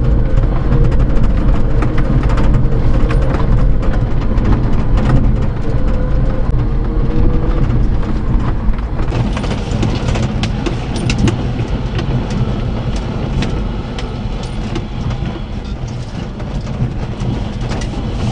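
Interior sound of a 1992 Daihatsu Hijet mini-truck's 660cc three-cylinder carburetted engine pulling the truck along a gravel track, a steady low hum with crackling and clicking from gravel under the tyres and cab rattles. The engine sound eases off gradually over the last several seconds.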